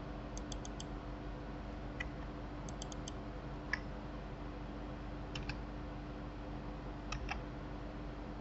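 Computer keyboard keys and mouse buttons clicking in short clusters of a few quick taps, with a single sharper click a little before the middle, over a steady low hum.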